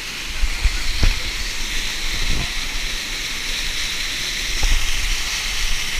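Waterfall pouring onto rock close by, a loud steady rushing hiss of falling and splashing water. A few low thumps break through it, twice in the first second or so, again about two seconds in and near the end.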